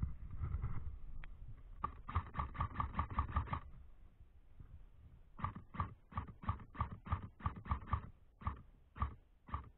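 Footsteps crunching in snow: a quick run of steps about two seconds in, then a steady walking pace of roughly three steps a second from about halfway.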